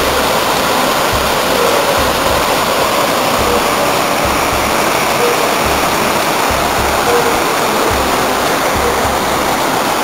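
Waterfall pouring into a rock pool: a steady, loud rush of falling water, with low rumbles coming and going underneath.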